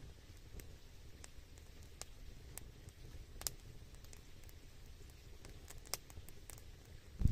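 Wood fire crackling faintly: scattered, irregular sharp pops over a low steady rumble.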